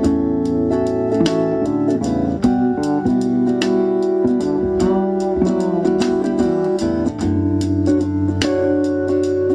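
Background music: an instrumental passage of a song led by plucked guitar over a steady bass line.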